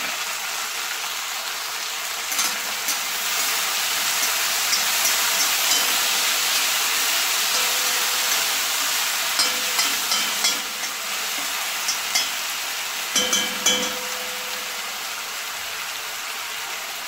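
Chopped jackfruit seeds sizzling steadily in hot coconut oil in an iron kadai, stirred with a spatula that scrapes and clicks against the pan, most often past the middle.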